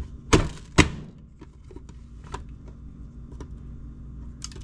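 Food storage containers being handled: two sharp knocks about half a second apart, then faint clicks and small handling noises over a low steady hum.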